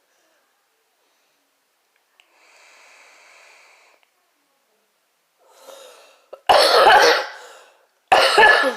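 An e-cigarette firing with a click and a steady hiss of under two seconds as it is drawn on, then two loud coughs about six and a half and eight seconds in.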